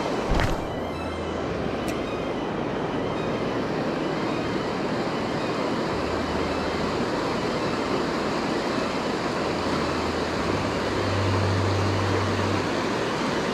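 Steady rushing of river water over riffles and rapids, with a single handling bump against the microphone about half a second in and a low rumble swelling now and then.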